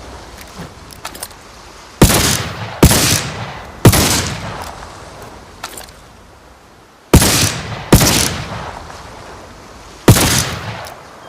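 Revolving triple-barrel flintlock pistol firing six shots: three about a second apart, then two, then one, each ringing out for about a second. Light clicks come between the volleys.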